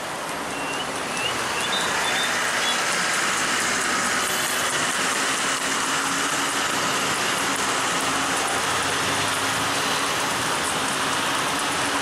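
Hooves of many horses walking on an asphalt street, blending into a steady dense wash of noise.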